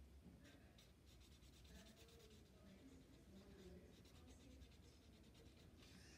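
Faint scratching of a felt-tip marker drawing on paper, in short strokes.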